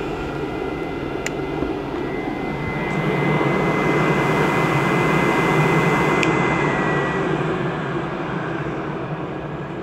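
6-inch inline duct fan running with a steady rush of air and a thin high tone. A click comes about six seconds in, after which the sound slowly dies down.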